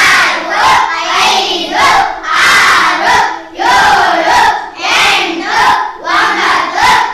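A class of young schoolchildren answering together in loud unison, calling out their replies in short phrases with brief pauses between.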